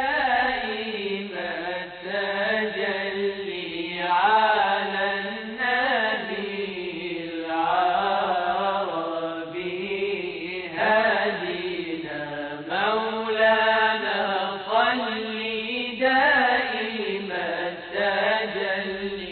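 A voice chanting melismatically in long, ornamented melodic phrases of a few seconds each, with short breaks between them.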